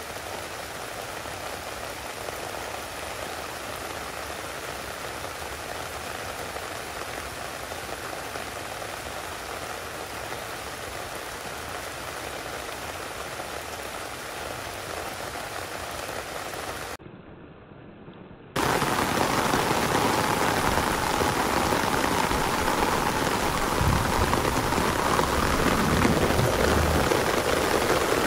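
Steady rain falling. About 17 seconds in, the sound drops for a moment to a quieter, muffled stretch, then comes back clearly louder.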